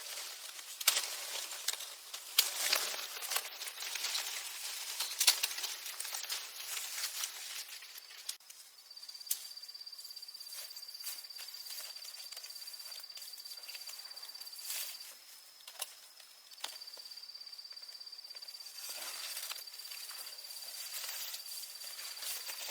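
Rustling and crackling with a few sharp clicks for about the first eight seconds. Then a steady, high insect trill comes in and runs on, stopping briefly about two-thirds of the way through.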